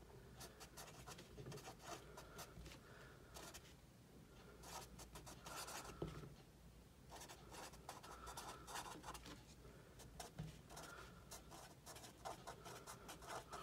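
Felt-tip marker writing on a paper pad: faint, quick scratchy strokes in runs, with brief pauses between words.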